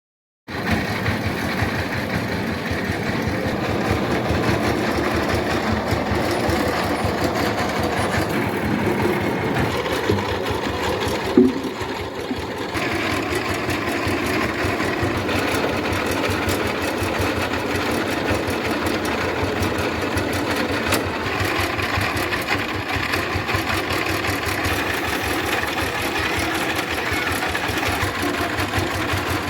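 Mobile rice milling machine running, its engine and milling works making a steady, fast mechanical clatter. A brief louder knock stands out about eleven seconds in.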